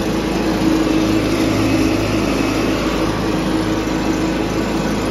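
John Deere 210 garden tractor's Kohler engine of about 10 horsepower running steadily at full throttle while the tractor drives along in second gear.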